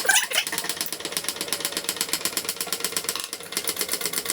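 A hoist lifting an ice auger, its mechanism clicking steadily and quickly, about ten clicks a second.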